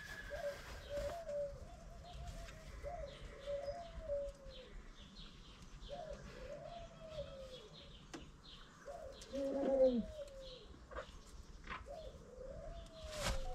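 A pigeon cooing in a long run of soft, falling coos, one after another, with one louder, lower call about nine and a half seconds in.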